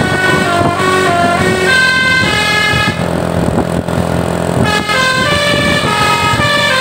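Telolet basuri multi-tone bus air horn playing a tune, its notes stepping quickly up and down. It holds one chord about two seconds in, breaks off for about a second and a half, and starts the tune again near five seconds.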